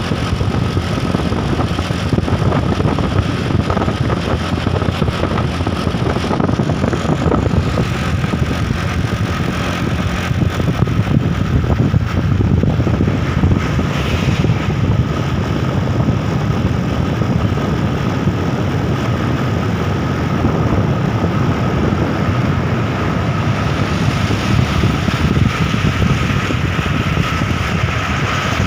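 Truck engine running steadily, with a thin steady whine above the low engine sound.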